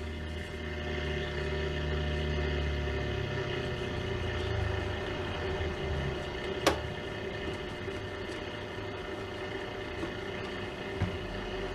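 Hallicrafters S-120 shortwave receiver's speaker giving out static and a steady hum while it is tuned across the band with no station coming in; the static is blamed by the owner on nearby fluorescent lights. A low rumble fades out about a third of the way in, and there is a sharp click about two-thirds through.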